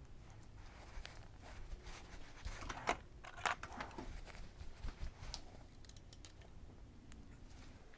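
Scattered light metallic clicks and rattles of small parts and tools being handled, busiest around the middle.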